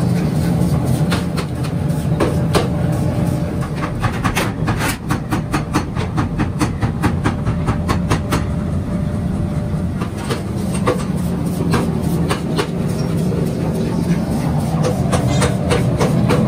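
Sharp metallic clanks and taps of steel blocks being handled and struck, coming thickest in the middle, over a steady low rumble of shop machinery.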